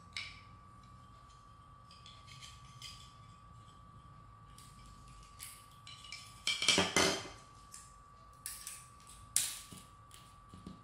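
Small 3D-printed plastic parts clicking and rattling as they are handled and fitted together by hand, with a louder clatter a little past the middle and a sharp click near the end.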